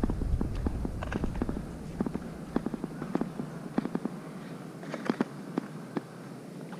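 Irregular light clicks and taps of footsteps walking on paving, with a low rumble that fades out after the first couple of seconds.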